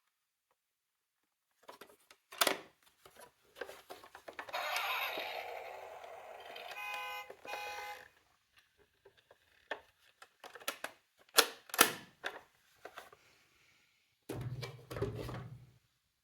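Plastic toy mini cars clacking on a hard surface and rolling down a slope with a rattling hiss for a few seconds, a pulsing electronic siren beeping briefly near the end of the roll. More sharp clacks follow, then a short low buzz near the end.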